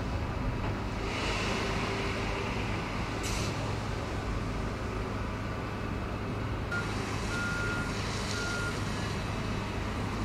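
Class 37 diesel locomotive's English Electric V12 engine idling with a steady low drone. A hiss of air comes about a second in, and three short high beeps sound a little past the middle.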